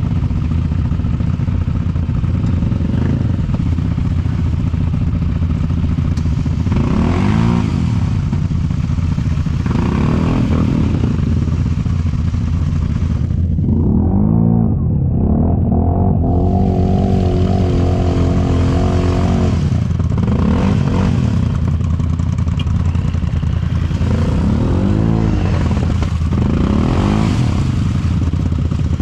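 Off-road vehicle engine running under load, revved up and down about six times in bursts of a second or two.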